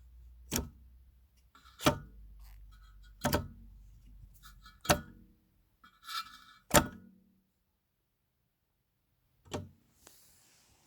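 Six sharp knocks and clicks, roughly one every second and a half, from subwoofer parts and tools being handled while the unit is taken apart. A low hum runs underneath and stops about seven seconds in.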